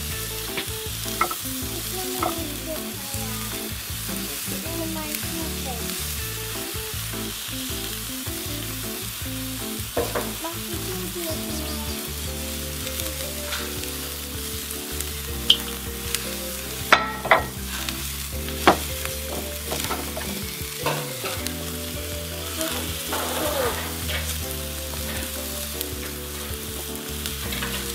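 Rib-eye steaks sizzling on a charcoal grill grate: a steady hiss with scattered crackles, and a few sharp, louder pops about halfway through.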